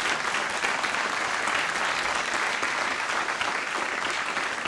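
An audience applauding: many people clapping in a dense, steady patter.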